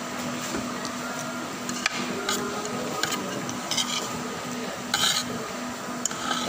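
Metal fork and spoon clinking and scraping on a plate several times, the loudest clink about five seconds in, over a steady background hum.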